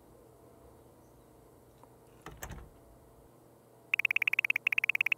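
Quiet room tone with a soft knock about two and a half seconds in. Then, near the end, a rapid run of high electronic beeps starts, many a second with two short breaks: a text-typing sound effect as on-screen title text is written out.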